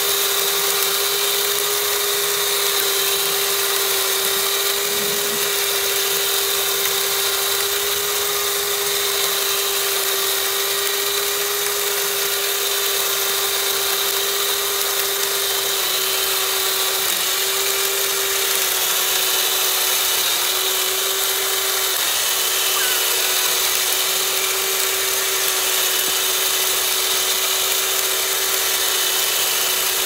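Huina 574 remote-control concrete mixer truck's drum motor and gears whining steadily as the drum turns to discharge concrete down the chute, dipping briefly in pitch a few times past the halfway point.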